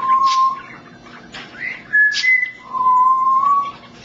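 African grey parrot whistling clear notes: a short low note, a pair of higher notes about halfway through, then a longer low note.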